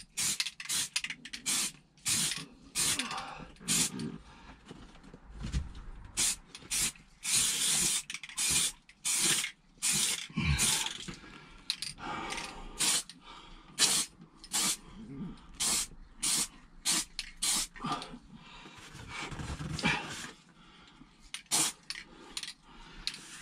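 Aerosol can of plastic primer sprayed in many short hissing bursts, about one or two a second with a few longer passes, laying down a first coat on a plastic bumper.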